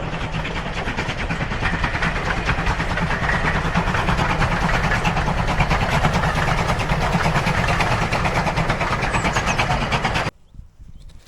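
A train running past, a loud steady engine rumble with a fast, even pulse, which cuts off suddenly near the end.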